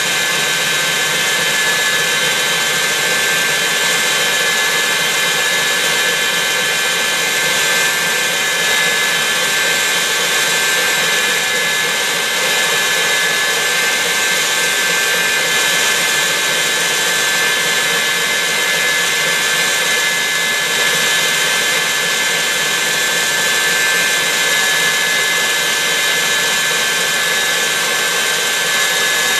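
KitchenAid Heavy Duty stand mixer running steadily at high speed, its motor and gears giving a constant high whine as the wire whip beats egg whites into meringue in a stainless steel bowl.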